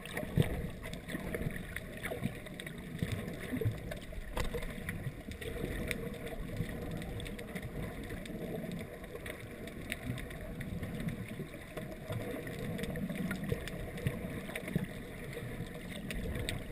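Muffled water noise heard through a GoPro dive housing held underwater, a steady low rumble and slosh with scattered small clicks and knocks, the sharpest about half a second in.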